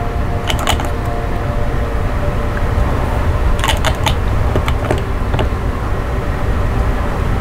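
Scattered light clicks and taps of plastic kit parts and small tools being handled on a workbench, in a few short clusters, over a steady low hum.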